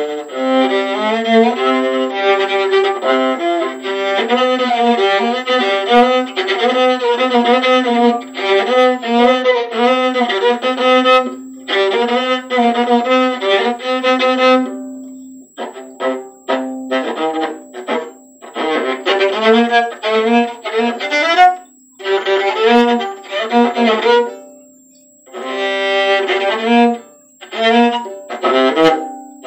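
Solo viola played with the bow. It starts with an unbroken run of notes over a held lower note, and in the second half it plays shorter phrases broken by brief pauses.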